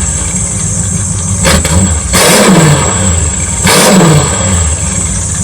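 Rat rod's 5.9-litre engine running through an unfinished exhaust, blipped a few times with the revs falling back to idle after each, the loudest about two and four seconds in. The turbo is not yet connected.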